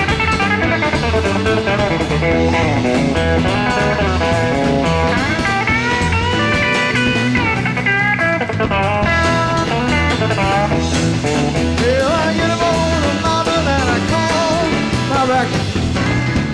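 Live rock band playing an instrumental break, an electric guitar lead with bending, gliding notes over a steady bass line and drums, heard on a soundboard recording.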